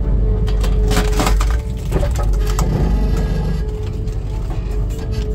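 Skid steer running with a steady whine while its homemade splitter wedge is driven down into a log like a splitting maul. The wood cracks and splinters several times in the first few seconds.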